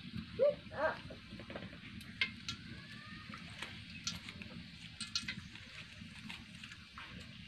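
Whole spices, cardamom pods and cinnamon stick, sizzling in a little hot oil in a large aluminium karahi, with scattered small pops and clicks. A short voice-like call sounds about half a second in.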